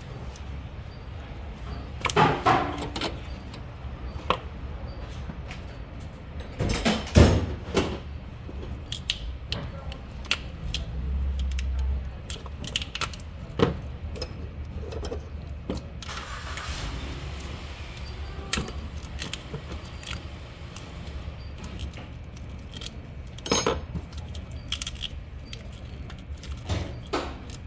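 Metal hand tools and parts clinking and knocking during work on the car's alternator, in irregular bursts of clatter with scattered small clicks between them. The loudest clatters come about seven seconds in and again about three-quarters of the way through.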